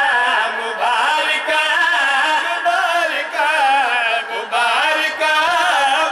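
A man's voice chanting devotional verses in an unaccompanied, melismatic sung style, the pitch wavering and ornamented on long held notes.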